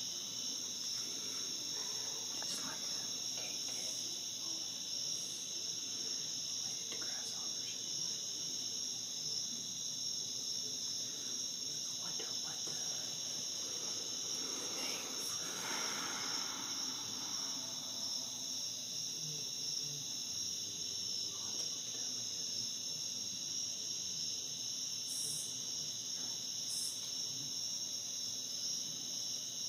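Chorus of night-singing insects: a continuous high-pitched trilling that holds steady without a break.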